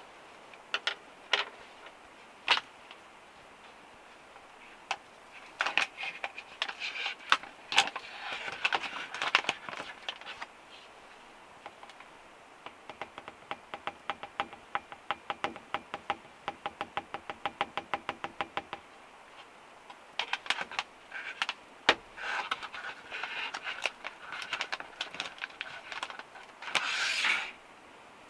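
Clinks, knocks and rustles of making a hot drink at a small counter: a kettle handled on the stove top, powder poured from a packet into a ceramic mug. In the middle comes a run of quick, even clinks for about six seconds, and near the end a louder rustle of about a second.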